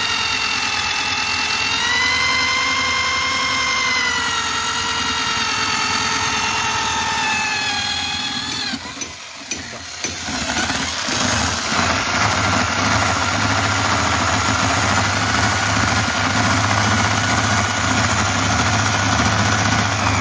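Electric hammer drill with a long extended bit (an old bit welded onto a rod) boring a hole the size of the conduit pipe through the base under a roof beam. The motor's whine rises and dips in pitch under load for about eight seconds and stops briefly. It then runs again with a steady whine and hum, and cuts off at the end.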